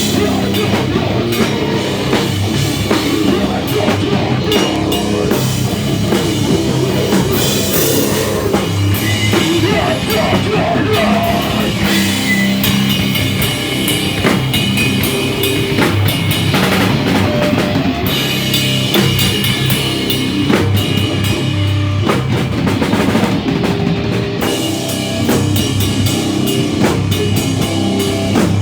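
Live rock band playing loud and without a break: drum kit, bass and electric guitar.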